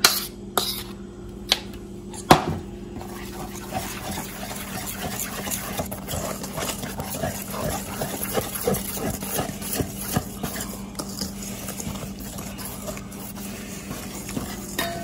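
Wire whisk stirring flour into cake batter in a stainless steel bowl: a quick, irregular run of scraping and tapping against the metal, with a few sharper clinks in the first couple of seconds. A steady low hum runs underneath.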